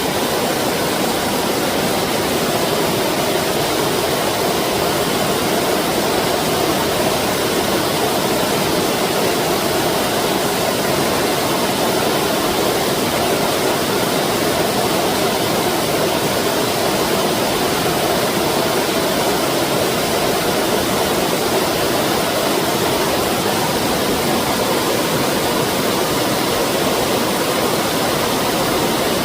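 Stream water rushing steadily over rocks, an even, unbroken wash of sound.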